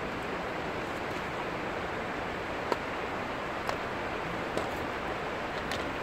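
Six Mile Water river flowing: a steady rush of water, with a few short clicks in the second half, the first the loudest.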